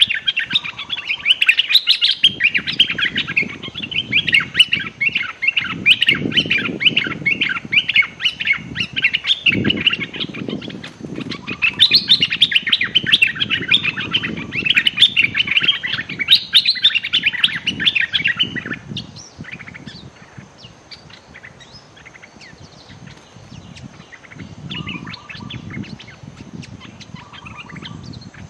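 Bulbuls chattering in long, rapid, harsh bouts: a caged decoy bulbul scolding a wild bulbul perched nearby, a territorial challenge. After about 19 seconds the chatter fades to sparse, fainter calls, with a low rumbling noise underneath.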